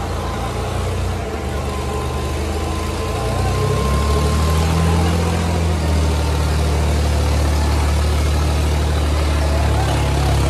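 Tractor diesel engines of a Kubota 5501 and a New Holland 3600 running hard under heavy load as the two tractors pull against each other in a tug-of-war. The engine sound steps up and grows louder about three and a half seconds in, then holds steady.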